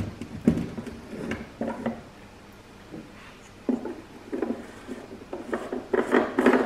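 Plastic spool of welding wire being pushed onto the spool hub of a MIG welder and its retaining knob turned on: a string of irregular knocks, clicks and plastic scraping.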